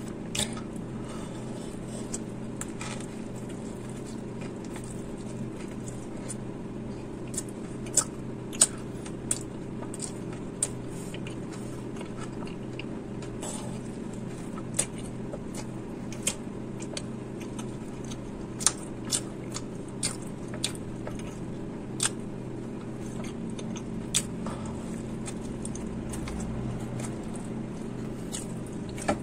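Close-miked chewing and biting of a burger soaked in cheese sauce, with wet mouth smacks and clicks every second or so. A steady low hum runs underneath.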